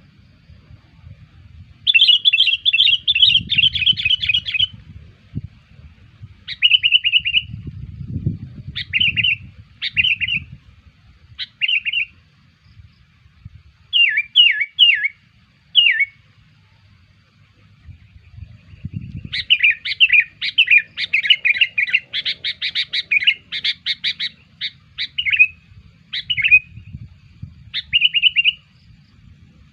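Sooty-headed bulbul (kutilang) lure song: short bursts of quick chattering notes with pauses between them, and a long run of rapid chatter about two-thirds of the way through.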